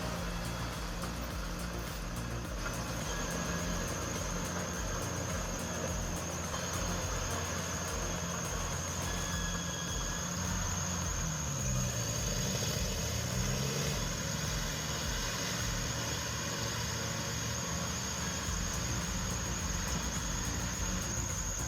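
Heavy machinery engine running steadily, its pitch rising and falling briefly around the middle, with a continuous thin high-pitched whine over it.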